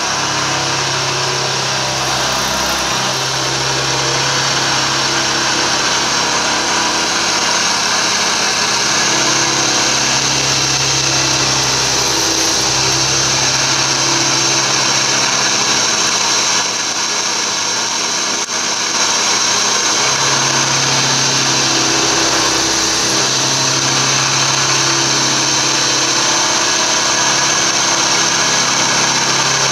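A 3/4-inch end mill on a ProtoTRAK CNC bed mill cutting dry around the outline of an aluminium block, a quarter inch deep, with a steady loud cutting noise. A low hum under it drops in and out every few seconds.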